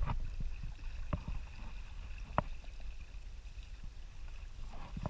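Water against a plastic kayak hull as it glides, over a steady low rumble, with three sharp knocks, the loudest near the middle. A faint steady high tone runs through the first few seconds.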